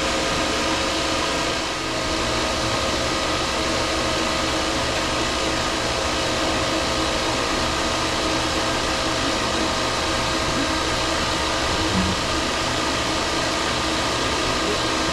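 Refrigerant recovery machine running steadily, its compressor and fan giving a constant mechanical drone, while it pulls refrigerant out of an ice machine's system.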